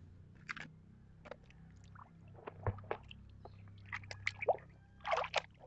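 Muddy, soapy water sloshing and splashing in a basin as a toy figure is dunked and rubbed by hand: soft, irregular splashes, busier in the second half, with a louder splash near the end.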